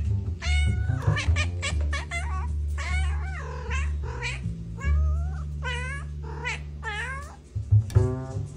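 A domestic cat meowing over and over in a rapid series of short calls that rise and fall in pitch, over background music with a steady low bass line.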